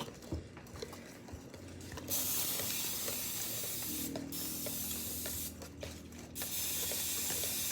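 Aerosol cooking-oil spray hissing into a cupcake pan in three bursts, the first about two seconds long and the next two shorter.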